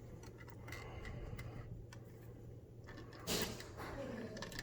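Faint clicks and rustling of electrical wires being handled and joined, with one louder short scrape a little over three seconds in.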